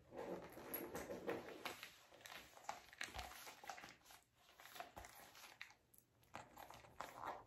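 Faint rustling and light irregular clicks of a canvas messenger bag and its pouches being handled and undone.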